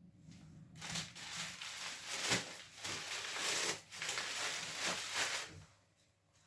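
Paper being crumpled and torn by hand while the fire is laid in the wood stove: a dense rustling that starts about a second in, breaks off briefly twice, and stops near the end.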